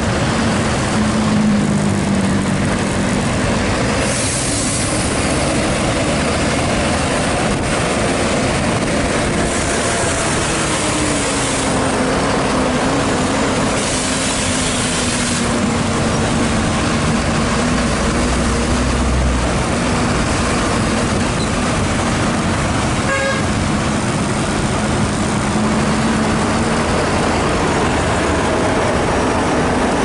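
A large bus's engine droning steadily as it climbs behind and alongside trucks, under a constant rush of road and wind noise from the passing traffic.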